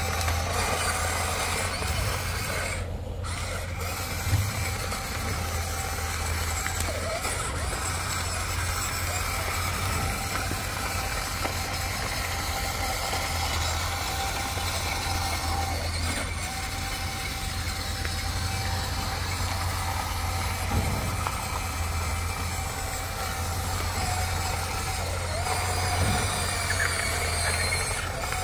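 Huina remote-control excavator working: a steady low hum with the whir of its motors, the pitch shifting now and then as the arm and tracks move.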